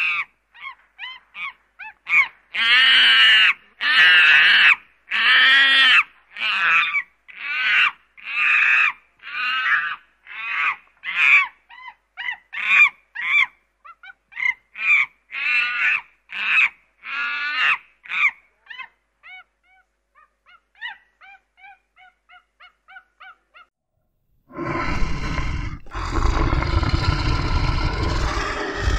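A monkey gives a long series of short, high-pitched calls, several a second, that thin out into faint chirps. About three-quarters of the way in, a lion starts a low, rough call.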